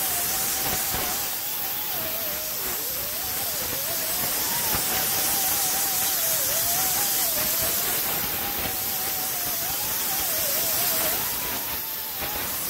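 A 3-inch grinder with a Roloc disc grinding down a crack in a fiberglass topper. The disc gives a steady hiss over the motor's whine, which wavers up and down in pitch.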